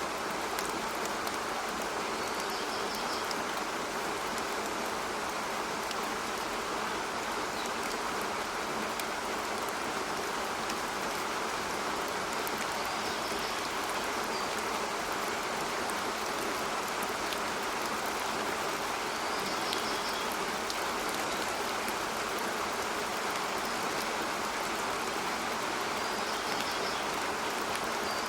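Steady rain falling, with a few short, high bird chirps now and then.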